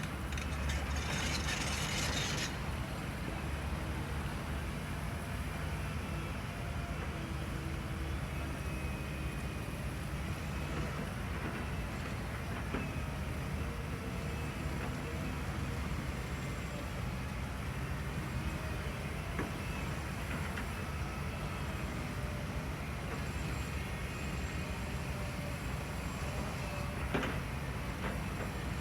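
Radio-controlled model construction machines running: a steady low rumble with faint whining motor tones that rise and fall. A hiss in the first couple of seconds, and a single click near the end.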